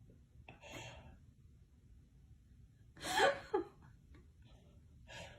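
A short, breathy gasp-like vocal sound about three seconds in, with fainter breathy sounds about half a second in and just before the end.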